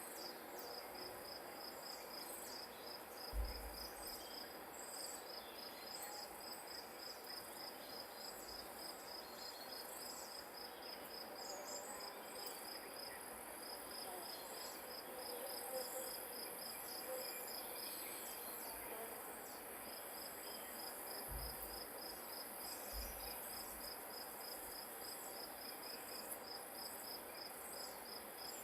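Grass insects, crickets, chirping in a steady, quick, even high-pitched pulse over a fainter high insect hiss. A brief low thump about three seconds in, and two more past twenty seconds.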